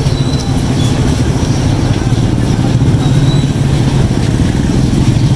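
A vehicle engine running steadily at idle close by, a continuous low hum over street noise.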